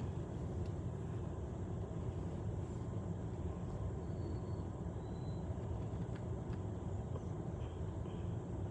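Steady low outdoor rumble, with a few faint, short bird chirps about four and five seconds in and again near the end.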